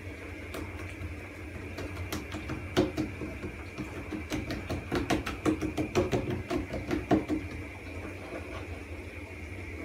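Hands pressing and patting soft pişi dough flat on a wooden board: a run of soft, irregular taps, densest and loudest in the middle, over a steady background hum.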